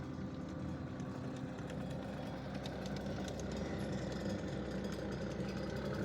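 ASV RT-40 compact track loader's diesel engine running steadily, with light clanking rattles over it. It grows a little louder toward the end.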